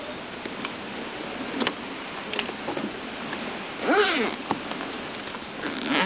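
Handling of a roof-rack awning bag: a few light clicks and rustles of the bag and its fittings, then a short squeak that rises and falls about four seconds in, and another near the end.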